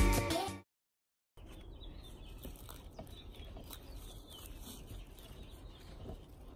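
Background music ends abruptly, followed by a moment of silence and then faint outdoor ambience with a few birds chirping and some soft clicks.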